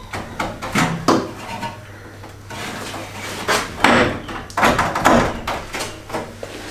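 Irregular clunks and rattles from a BMW E30's pressed-steel front core support being rocked back and forth by hand against the body, as it is worked loose after its spot welds have been cut.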